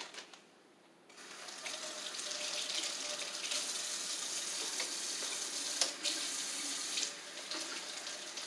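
Kitchen faucet running into the sink, starting about a second in and running steadily, with a single light knock partway through.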